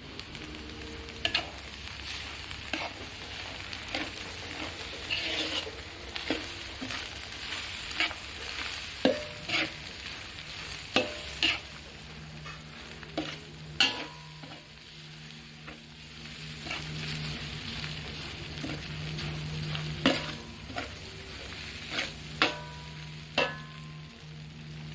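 Food stir-frying in a pan: a steady sizzle with frequent sharp clinks of a utensil against the pan, and a steady low hum joining in about halfway through.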